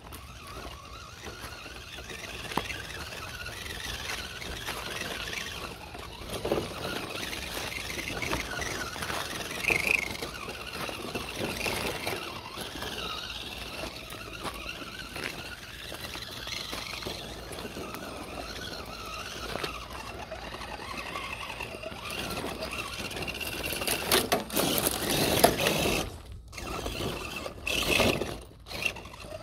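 Scale RC rock crawler's Castle Creations Copperhead brushless motor and drivetrain whining steadily, the pitch wavering with throttle as it crawls, with rocks crunching and scraping under the tyres. Louder bursts of rock grinding and motor strain come near the end.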